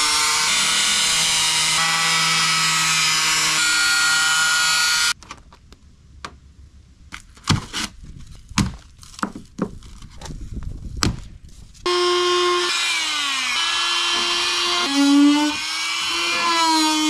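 Corded angle grinder cutting a vent hole through the camper's outer wall, running steadily with a high whine, then stopping suddenly about five seconds in. A run of about seven sharp knocks follows, then the power tool runs again near the end with its pitch dipping and wavering as it bites into the cut.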